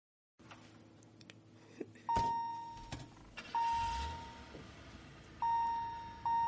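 A car's warning chime dinging about four times at an uneven pace, each ding ringing out and fading, with a few faint clicks and a low thump of the car being handled.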